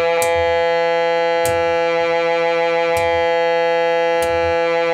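Superior toy organ-synthesizer holding one steady, unwavering note through its own built-in speaker, with soft knocks about every second and a half.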